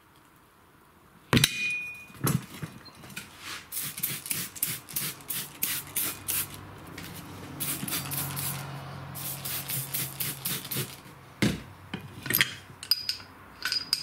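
A sharp clank as the manual tire changer's bead breaker is pushed down and pops the tire bead off the rim, then a long run of quick squirts from a trigger spray bottle wetting the bead with dish-soap water. A knock and a few light metal clinks near the end.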